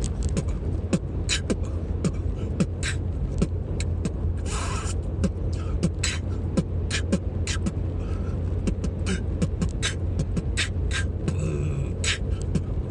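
A man beatboxing a freestyle: quick rhythmic mouth clicks, hi-hat and snare sounds, with a hissy hi-hat sound held briefly in the middle. A steady low engine hum runs underneath.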